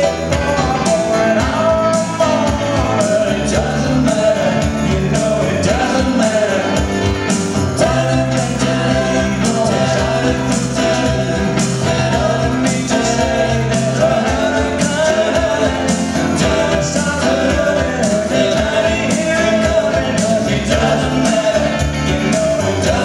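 Live band of electric guitar, bass guitar and keyboards playing a pop-rock song, with sung vocals over a steady beat.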